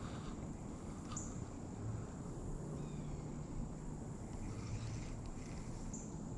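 Quiet outdoor ambience: a steady low rumble with a thin, steady high-pitched tone and a few faint chirps over it.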